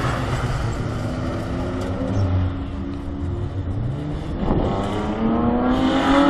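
Race car engine heard from trackside, running low at first, then accelerating with a rising engine note over the last two seconds.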